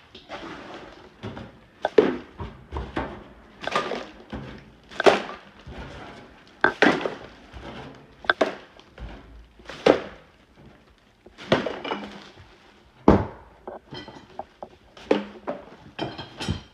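Repeated knocks, thuds and clatters of hard junk being handled and tossed during a house clean-out, a loud hit about every second and a half with smaller knocks between.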